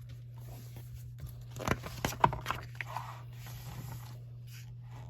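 Paper rustling and soft clicks as a picture book is handled and its pages turned, mostly in a cluster a second and a half to three seconds in, over a steady low hum.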